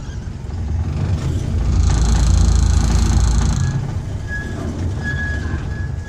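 12-inch gauge miniature railway train running slowly with a steady low rumble. A louder rushing hiss swells for about two seconds in the middle. Near the end come short, repeated high-pitched squeals from the wheels on the track.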